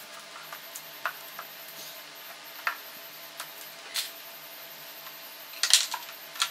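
Scattered clicks and light knocks of plastic and metal being handled as a car air-conditioning evaporator coil is settled into its plastic blower housing and its sensor wire is worked. A quick cluster of clicks near the end is the loudest, over a faint steady hum.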